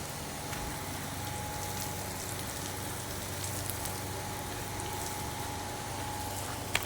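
Steady hiss of falling water, with a few light clicks and a faint low hum underneath.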